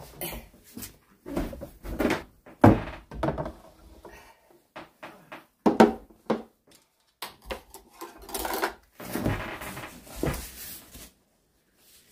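Wooden bowls and a plate being set down on a wooden windowsill, with metal spoons and chopsticks handled: an irregular series of knocks and dish clatter.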